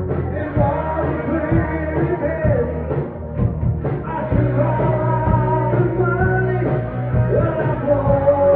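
Live rock band playing: a lead vocalist singing over electric guitar, bass guitar and a drum kit.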